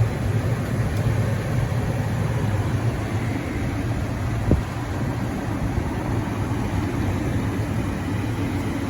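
A vehicle engine idling steadily with a low hum, and one short click about halfway through.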